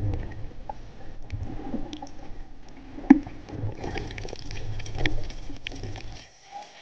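Muffled underwater noise picked up by a camera in a waterproof housing as the diver moves: a low rumbling of water with scattered clicks and crackles and one sharp click about three seconds in. The low rumble stops shortly before the end.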